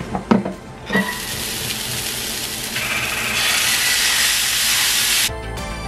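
Riced cauliflower sizzling in a hot frying pan on medium-high heat, the sizzle growing louder about three seconds in as enchilada sauce is poured over it. It cuts to background music near the end.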